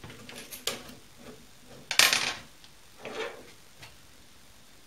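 Metal clinks and clanks of a milling vise being loosened and a machined aluminium block lifted out of it: a few light knocks, a sharp ringing clank about two seconds in, and a smaller one about a second later.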